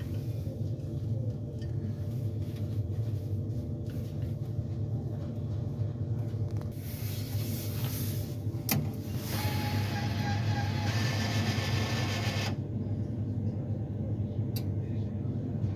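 Westomatic hot drinks vending machine running with a steady low hum; about seven seconds in a hiss starts and lasts about six seconds, with a faint whistle partway through. Two sharp clicks, one in the middle and one near the end.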